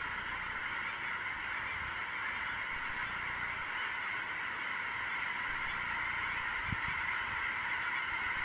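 A huge flock of migrating geese honking all at once: a dense, steady din of overlapping calls. A brief low bump about two-thirds of the way in.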